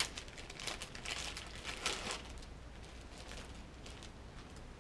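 Paper wrapper of a sterile glove pack being opened and unfolded, crinkling and rustling. There is a sharp click at the start, the crinkling is busiest in the first two seconds, and lighter handling noise follows.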